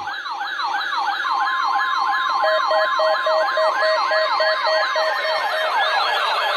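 Several NOAA weather radios alarming at once for the weekly alert test. An electronic siren sweeps up and down about three or four times a second. About a second in, a steady warning-alarm tone joins it, and a couple of seconds in, a rapid beeping.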